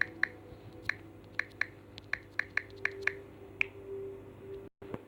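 Irregular series of short, sharp clicks, about a dozen over four seconds, typical of fingers tapping on a phone's touchscreen keyboard while typing a message. The sound cuts out briefly near the end.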